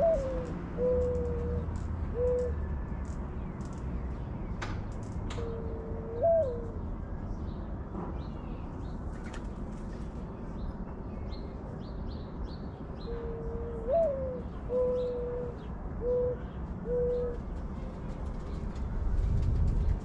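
A dove cooing in three groups of calls, each with one note that swings up sharply among short level coos; the middle group is brief. Faint chirps of small birds sound in the background.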